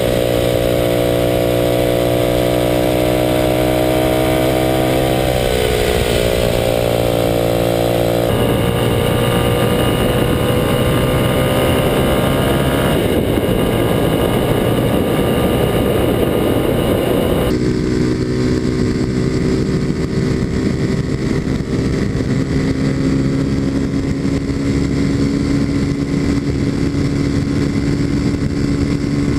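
Kawasaki KLX250SF's single-cylinder four-stroke engine running through its Muzzy aftermarket exhaust at cruising speed, with wind and road noise mixed in. The engine note climbs a little and then drops about five seconds in, and holds steady after that. Its tone shifts abruptly a few times.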